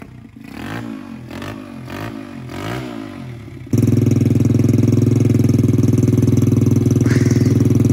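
Small dirt bike engine running with its exhaust piped straight back into the carburetor intake. At first it is quieter, its pitch rising and falling about twice a second. About four seconds in it jumps to a loud, steady idle.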